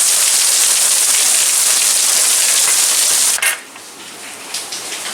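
Heavy rain falling in a steady hiss. About three and a half seconds in there is a sharp click, after which the rain is much quieter.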